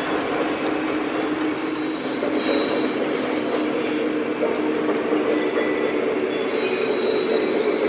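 O scale model trains running on three-rail track: a steady rumble of motors and wheels rolling over the track, with a few faint high wheel squeals that come and go.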